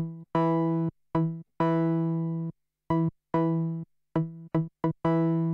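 Serum software-synth saw lead playing a sequence of about ten notes on a single repeated pitch, short staccato stabs mixed with longer held notes that fade away as they sustain. Note velocity is routed to the amp envelope's decay and sustain, and the filter cutoff is pulled down for a darker tone.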